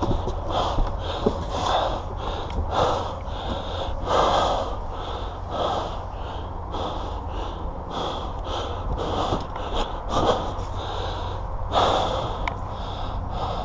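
A person breathing hard close to the microphone, with rapid, even in-and-out breaths about one a second, over a steady low rumble.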